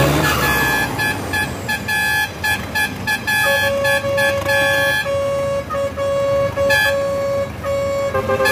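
Vehicle horns honking in rapid, repeated short blasts over engine noise. A higher-pitched horn honks until about five seconds in, and a lower-pitched horn joins about three and a half seconds in and keeps honking to the end.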